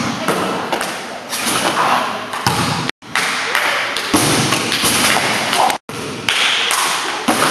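Basketball thuds in a large hall: the ball is dribbled on the hard floor and bangs off the rim and backboard on missed dunk attempts, with voices in the room. The sound cuts out abruptly twice, briefly.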